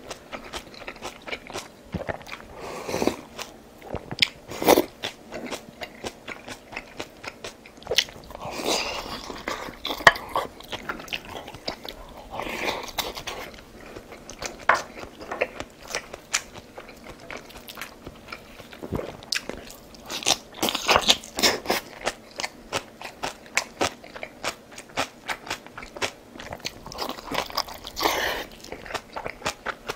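A person eating, with crunchy bites and chewing made up of many sharp mouth clicks and smacks, and a few longer, noisier stretches.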